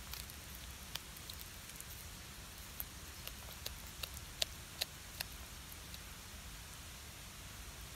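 A cat chewing a whole raw river fish, crunching it. The crunches are scattered and sharp, most of them in the middle few seconds, over a faint steady hiss.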